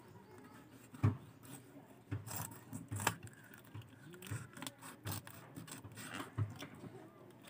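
Small knife scraping and cutting along a fish on a wooden board as the fish is split open and cleaned: irregular short scrapes and light knocks of the blade against the board, the sharpest about a second and three seconds in.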